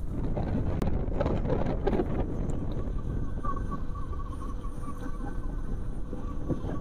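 Wind buffeting the microphone and road noise from riding along at speed on an electric scooter, a steady low rumble.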